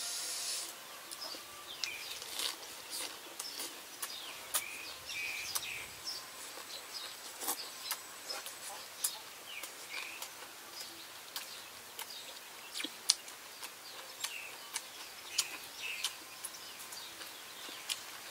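A person chewing a mouthful of raw meat wrapped in leafy greens, with many short wet mouth clicks and smacks. Small birds chirp briefly every few seconds against a steady outdoor background hiss.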